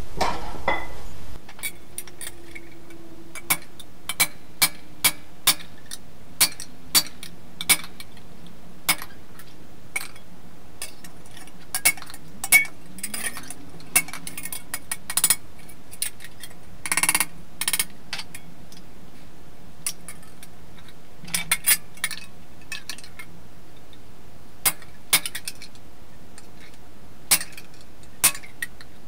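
Hand hammer striking a stainless-steel sheet buckler on an anvil, sharp metallic clinks at an uneven pace of about one or two a second, sometimes in quick pairs, as stiffening grooves are worked into its corners. About halfway through there is a longer, rougher clatter of about a second.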